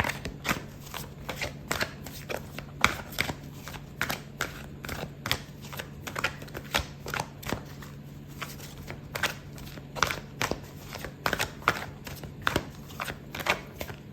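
A deck of oracle cards being shuffled by hand: a steady run of quick, irregular card flicks and taps, several a second, over a faint low hum.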